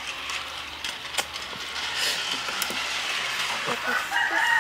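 A small battery-powered toy train's geared motor whirring steadily as it runs, with scattered light clicks.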